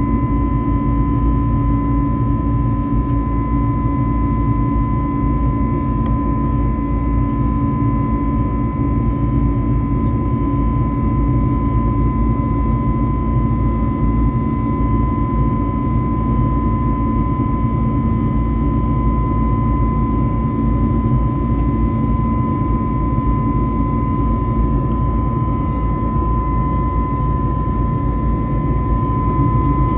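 Jet airliner's engines heard inside the passenger cabin while climbing after takeoff: a steady, unbroken drone with a high, even whine above it.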